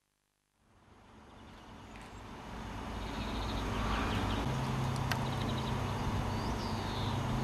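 Outdoor ambience fading in from silence: a steady low hum under a general background noise, a few faint high chirps, and one sharp click about five seconds in.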